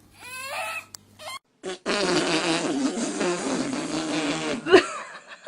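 A long, loud, rasping fart lasting nearly three seconds, starting about two seconds in and cutting off sharply. A shorter sound with a wavering pitch comes first.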